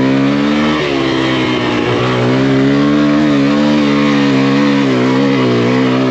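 Single-cylinder four-stroke Kawasaki KLX140 dirt bike engine, big-bored to 170 cc, revving hard under load as it climbs a loose sandy hill. The revs hold fairly steady, with a brief dip about a second in and some wavering near the end, as the bike struggles in a low gear. A higher gear would probably have carried it up.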